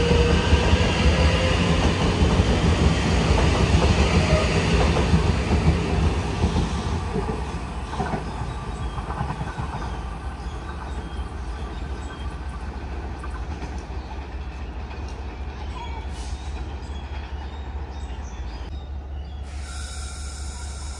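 A Taiwan Railway train passing on the rails, its wheels rumbling with a thin squeal over the first few seconds. The sound is loud for about six seconds, then fades to a lower rumble as the train moves away.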